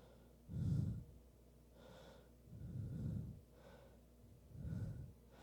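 A man breathing audibly into a close microphone: three slow breaths about two seconds apart.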